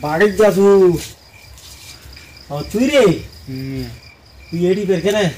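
Crickets chirping steadily in a thin, high tone, under three short spells of a man's voice.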